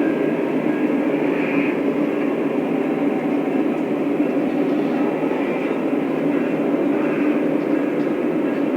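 Lionel O-scale model train running on the track: a steady, even rumble and hum of the motor and wheels.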